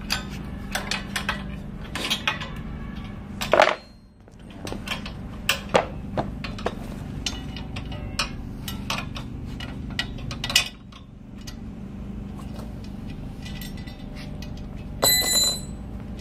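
Metal clinks and knocks of a wrench and bolts on the steel frame of a chalk-making machine being bolted together, over a steady low hum. There is a louder clank about three and a half seconds in, and another near the end that rings briefly.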